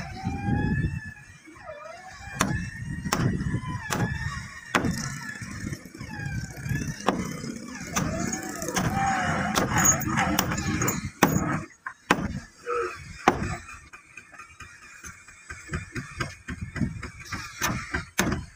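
Irregular sharp knocks and metal clanks with squeaks, from hand tools and chain hoists being worked against the planking of a wooden boat hull.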